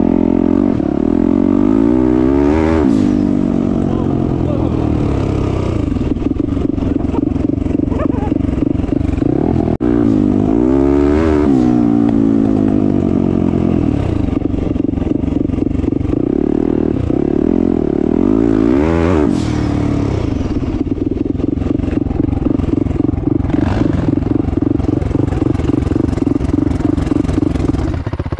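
Turbocharged 2021 Yamaha YZ450F's single-cylinder four-stroke engine running loud from the rider's seat while being ridden, its revs rising and falling several times, with the biggest surges about 3, 11 and 19 seconds in.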